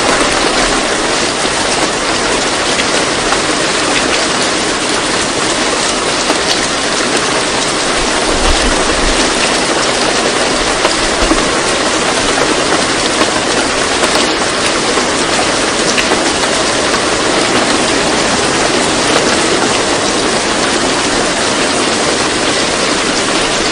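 Steady heavy rain, a dense even hiss that does not let up.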